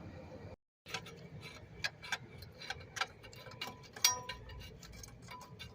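Irregular light clicks and metallic clinks, some ringing briefly, as small metal fuel-injector retaining clips and injectors are handled on the fuel rail. The sound drops out for a moment about half a second in.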